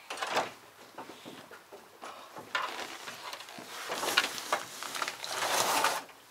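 Knocks, bumps and rustling as a person wearing a large backpack clambers into a capsule-hostel sleeping pod, the pack and body scraping and knocking against its moulded panels. The handling grows busier about halfway through and stops abruptly near the end.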